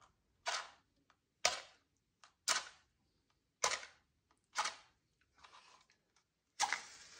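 Wooden match struck again and again along the striker of a matchbox: about seven short scrapes, roughly one a second, the match not yet lit.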